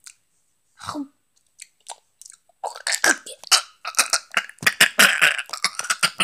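A girl faking a choking fit: a few short throat sounds at first, then about three seconds of loud, rapid coughing and gagging.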